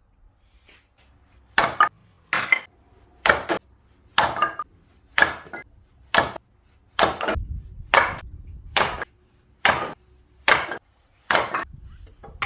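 Axe striking and splitting firewood: a steady run of about fourteen sharp chops, roughly one a second, beginning about a second and a half in.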